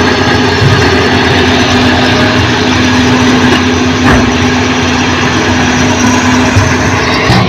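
Heavy diesel engine of construction machinery running steadily, a loud continuous drone with a constant hum.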